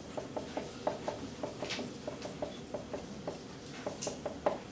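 Dry-erase marker tapping and scratching on a whiteboard as letters are written: a quick run of short strokes, about five a second, with a couple of sharper, higher scratches.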